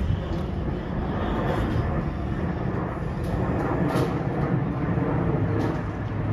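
Steady low rumble of a large passing vehicle, with a few brief sharp clicks.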